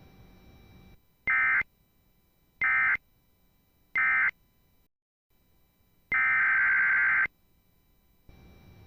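Emergency Alert System SAME data bursts, a buzzy electronic screech. First come three short end-of-message bursts about a second apart, marking the end of an alert. About two seconds later a single longer header burst starts the next alert.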